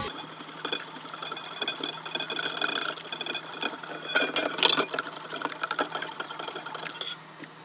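Electric mixer running steadily, its whisk rattling and clicking against the bowl as it beats egg whites into meringue. It stops shortly before the end.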